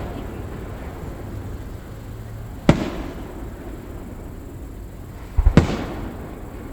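Aerial fireworks shells bursting: one sharp boom about two and a half seconds in, then two or three booms in quick succession about five and a half seconds in. Each boom trails off into a low rumble that carries on between the bursts.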